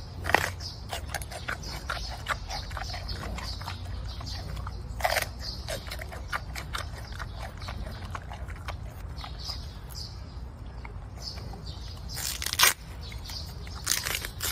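Giant panda biting and chewing a fresh bamboo shoot: a continuous run of crisp crunching clicks as the fibrous stalk breaks, with a few louder cracks about five seconds in and near the end. A low steady rumble lies underneath.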